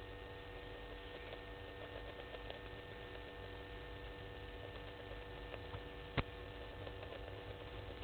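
Steady electrical hum of several fixed tones over a low rumble, with faint scattered ticks and one sharp click about six seconds in.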